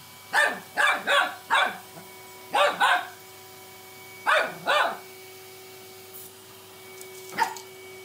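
A cockapoo puppy barks at a vacuum cleaner: a quick run of four barks, then two pairs, then one more bark near the end. A faint steady hum runs underneath.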